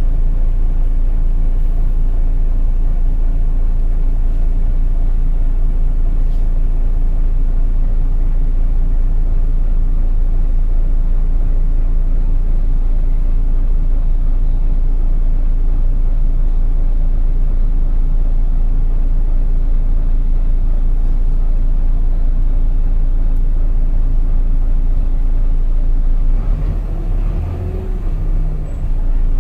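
Volvo B9TL bus engine and drivetrain droning steadily on the move, with a deep low hum. Near the end the sound dips briefly and a whine rises and falls as the bus changes speed.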